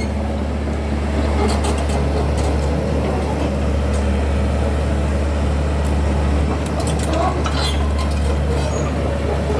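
Komatsu D31P bulldozer's diesel engine running at a steady, even speed, with a few short clanks.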